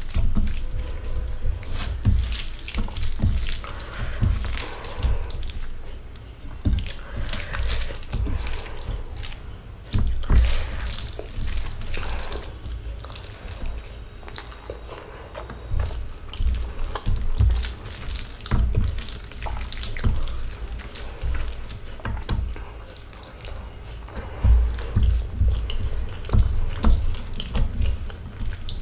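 A hand mixing rice with curry on a steel plate and eating with the fingers: wet squishing and fingers scraping the plate, with chewing and lip smacks close to the microphone. These come as many irregular short clicks and smacks.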